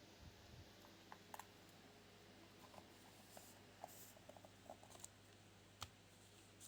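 Near silence: faint scattered small clicks and light taps over a steady low hum.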